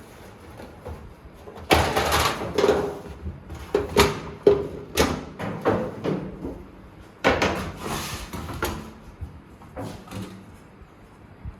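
Sheet-metal DVR rack parts clattering and knocking as they are handled and fitted together: a run of irregular sharp knocks, some with a short metallic ring.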